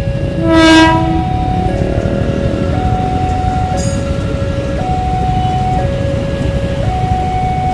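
Level-crossing warning alarm sounding a two-tone signal, stepping between a lower and a higher tone about once a second, over the rumble of an electric commuter train passing on the tracks. A short train horn blast about half a second in is the loudest sound, and there is a brief high squeal about four seconds in.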